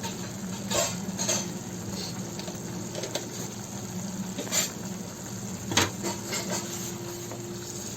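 A spoon knocking and scraping against a cooking pan a few times, a sharp clink every second or so with the loudest near the end, while a tomato curry with freshly added water and salt is stirred. A steady low hum runs underneath.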